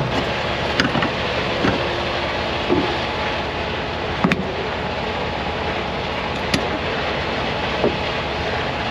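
Steady running noise of the idling semi truck. About half a dozen sharp clicks and knocks are spread through it as the trailer's electrical cord is plugged into the tanker's socket.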